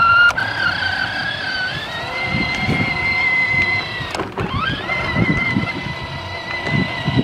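Battery-powered Mongoose kids' ride-on ATV driving, its small electric motor and gearbox giving a steady whine. The pitch steps up about two seconds in, drops briefly near four seconds, then climbs back.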